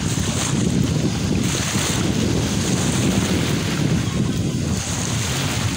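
Wind buffeting the microphone in a steady low rumble, over the wash of small waves in shallow sea water.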